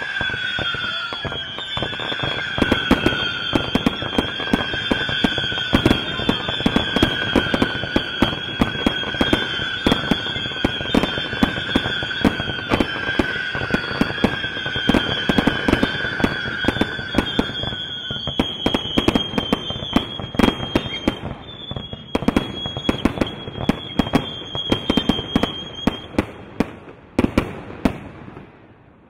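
Fireworks fountains and comets firing in a dense run of sharp bangs and crackles over two steady high whistles. The lower whistle stops a little past halfway, the higher one near the end, and the firing then dies away.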